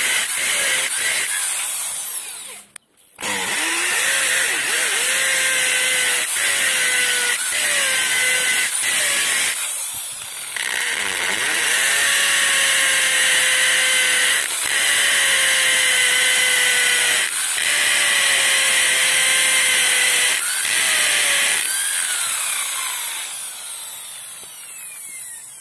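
Corded Marktec MT814 electric drill boring into hard cured concrete with a 10 mm carbide-tipped INGCO masonry bit. The motor whine dips in pitch as the bit bites and then holds, with short breaks between holes. Near the end the motor winds down.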